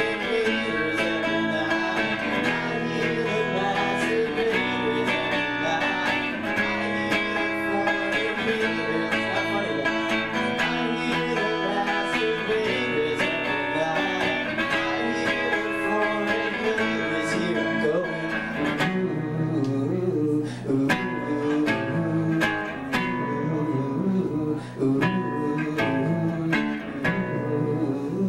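Live rock band playing a guitar-led song. The sound thins to sparser guitar strokes about two-thirds of the way through.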